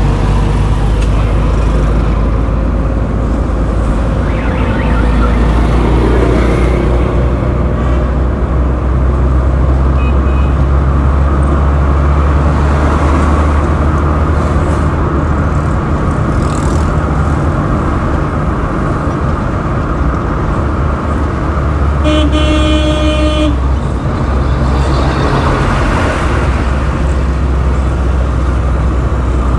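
Road traffic with a steady low engine rumble, and a vehicle horn honking once for about a second and a half roughly three-quarters of the way through. A brief faint beep comes about a third of the way in.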